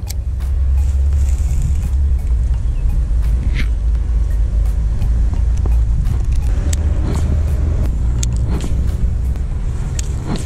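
A steady low outdoor rumble, with scattered sharp clicks from a baitcasting rod and reel being handled and cast.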